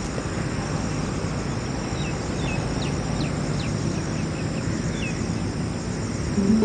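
Outdoor ambience: a steady low background rumble with a steady high drone, and a run of short, falling bird chirps in the middle. A brief low tone sounds just before the end.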